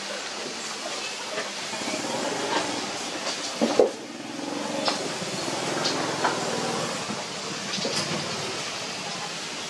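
Litter of puppies suckling at their mother's teats: scattered small wet clicks and snuffles over a steady hiss, with one brief thump about four seconds in.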